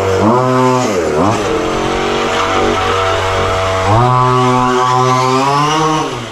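Chung Yang 26cc two-stroke gas engine of a 1/5-scale RC car revving up and down: it climbs just after the start, drops sharply about a second in, holds a steady middle speed, then revs higher about four seconds in and eases off near the end.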